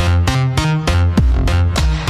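Electronic background music with a heavy bass line and a steady beat, about four beats a second.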